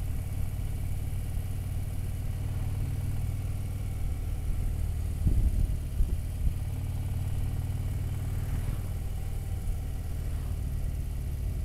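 Motorcycle engine running steadily while riding along a city street, a low even drone. A few thumps come about halfway through.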